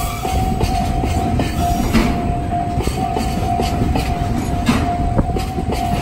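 Level-crossing warning bell, a JR Central-type electronic alarm, ringing in a steady repeating pattern. Under it, a freight train of oil tank wagons passes with a constant low rumble and clickety-clack of wheels over rail joints.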